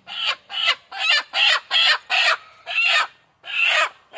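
A chicken held upside down by its legs squawking loudly in distress, about a dozen short squawks in quick succession.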